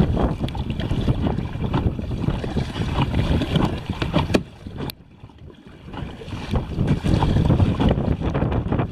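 Wind noise on the microphone over water sloshing around a kayak. About halfway through it drops away for a second or so, with a single sharp click just before the lull.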